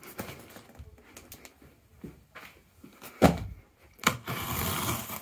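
A package being handled: scattered light clicks and taps, a sharp knock about three seconds in and another a second later, then about a second of rustling near the end.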